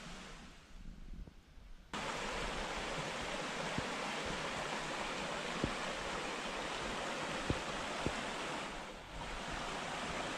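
Small mountain stream running over rocks: a steady rush of water that starts abruptly about two seconds in, with a brief dip near nine seconds.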